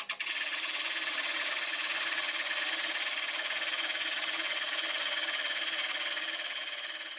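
Thin parting blade, held in a 60-degree jig, cutting an angled groove into a wooden disc spinning on a wood lathe: a steady scraping hiss that fades near the end.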